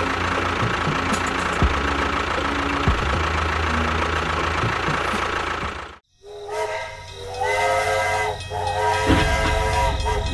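A small motor running steadily with a rattling hum and occasional knocks, cut off abruptly about six seconds in; after a brief silence, music of held chords begins.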